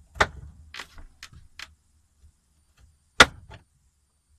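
Knife chopping frozen portobello mushrooms on a cutting board: sharp, crunchy chops, four in the first second and a half, then the loudest one about three seconds in, followed by a lighter one.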